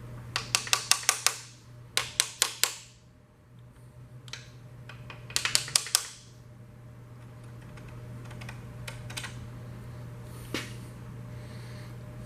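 Three quick runs of sharp metallic clicks, four to six at a time, from a hand tool working a connecting-rod cap loose on a 1950 Mercury flathead V8's bottom end.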